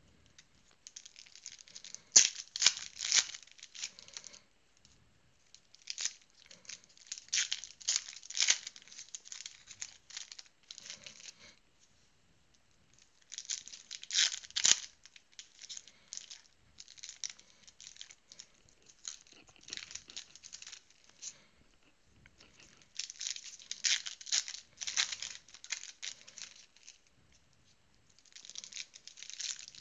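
Trading card packs being torn open and their foil wrappers crinkled, in repeated bursts of ripping and rustling with short pauses between.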